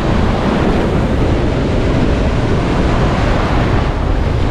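Rough, storm-driven sea surf breaking and washing up the shore in a continuous rush of foam, with wind rumbling on the microphone.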